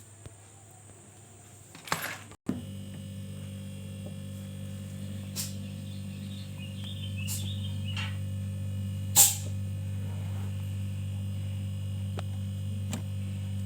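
Single-door refrigerator's compressor running with a steady electrical hum that sets in about two and a half seconds in. Several sharp clicks sound over it, the loudest about nine seconds in.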